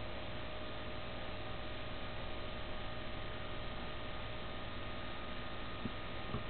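Steady hiss with a faint constant electronic whine and hum underneath: the self-noise of a compact digital camera's built-in microphone, with no other sound source standing out. A couple of faint clicks come near the end.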